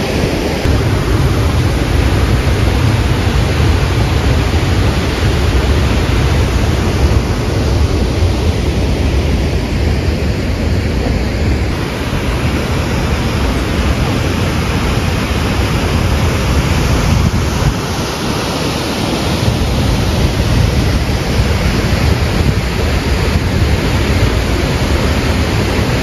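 Athirappilly Falls: a loud, deep, steady rush of falling water, with wind on the microphone.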